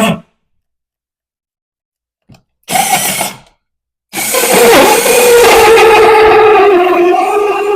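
Power drill driving a 4-inch hole saw into wood, in a short burst and then a long run. The motor's pitch sags under load as the saw binds in the too-thick stock.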